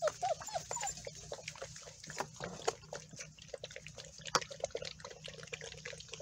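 A litter of pit bull puppies eating together from a shared pan: a steady patter of quick chewing and smacking clicks, with a few short whimpers in the first second.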